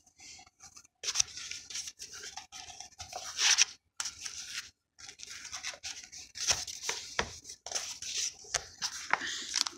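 Handling noise from a phone being moved about: irregular rubbing and scraping with clicks right on the microphone. The sound cuts out to silence a few times.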